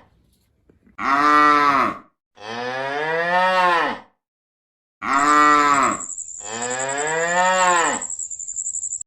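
A cow mooing, four long moos in a row. A thin, steady high-pitched tone joins during the second half.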